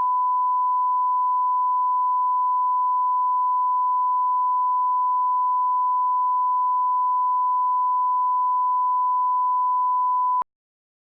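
A steady 1 kHz line-up reference tone, one pure pitch held without change, that cuts off abruptly near the end. It is the test tone laid at the head of a broadcast master for setting audio levels.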